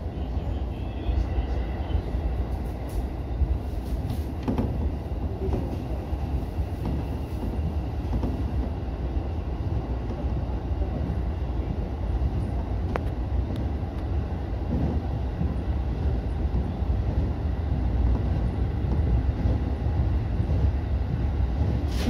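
JR East E231-series electric commuter train running at speed, heard from inside the front cab: a steady low rumble of wheels on rails, with a few short clicks, growing a little louder in the last few seconds.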